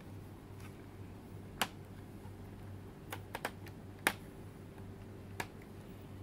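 Sparse sharp clicks and taps of a plastic puzzle box being handled and its lid shut, about six in all, three in quick succession about three seconds in and the loudest just after.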